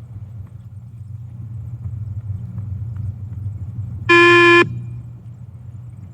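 Single electronic beep of a multi-stage fitness (beep) test recording, about four seconds in and lasting about half a second. It is the shuttle timing signal telling the runner to reach the 20 m line, here during stage 6. A steady low hum runs underneath.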